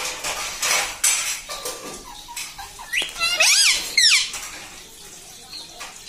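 Indian ringneck parakeet making a few shrill calls that rise and fall in pitch, about three to four seconds in, after some soft scratchy noises.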